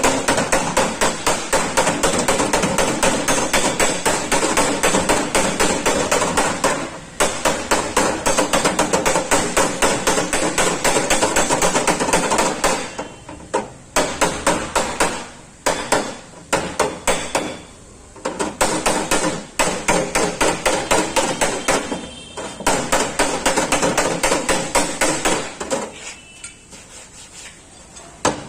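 Rapid hand-hammer blows on a Maruti 800's sheet-steel body panel, beating out accident dents: several sharp strikes a second in long runs with short pauses, thinning out near the end.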